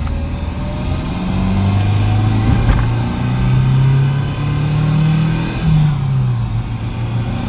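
Nissan 240SX (S14) naturally aspirated four-cylinder heard from inside the cabin, pulling under acceleration through its newly fitted five-speed manual. The engine note climbs in steps, then drops sharply with a gear change about three quarters of the way through.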